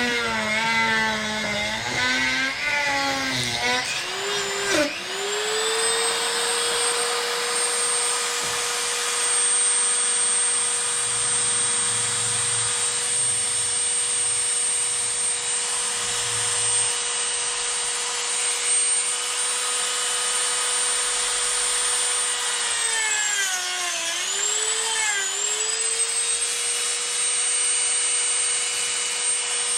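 A Dremel rotary tool running at high speed with a steady high whine while it trims the plastic battery tray. Its pitch wavers at first, then holds steady. Near the end the pitch dips twice as the bit bogs down under load.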